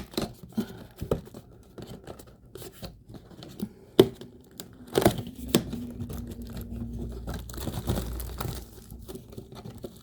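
Cardboard advent calendar door being torn open by hand, with crinkling and rustling of the packaging and scattered sharp taps and clicks, the sharpest right at the start and about four seconds in.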